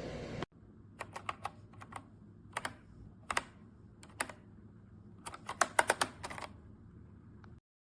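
Keystrokes on a Redragon K689 gasket-mount mechanical keyboard with linear switches, struck in short, irregular groups of clicks with a quicker flurry near the end.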